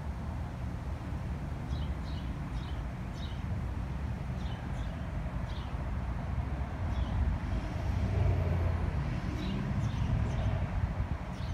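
Outdoor ambience: a steady low rumble that grows louder about eight seconds in, with a few short, high bird chirps over it.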